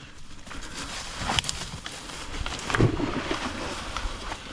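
Phone-call audio: a steady rustling hiss with two short breathy voice sounds, about one and a half and three seconds in.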